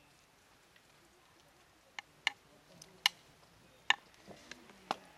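Kitchen knife chopping garlic on an olive-wood cutting board: about two seconds in, the blade starts striking the board in a handful of sharp, irregularly spaced knocks.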